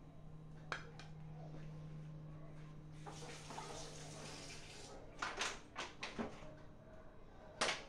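Kitchen tap running into a sink while hands are washed, as a hiss lasting about two seconds from a few seconds in, followed by several sharp knocks and clatters at the sink. A steady low hum runs underneath.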